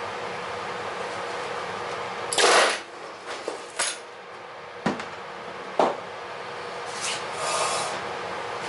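A 2X pneumatic rivet gun fires one short burst, driving a rivet into the aluminium skin of an RV-10 vertical stabilizer. It is followed by several sharp single clicks and knocks from tools being handled, over a steady background hum.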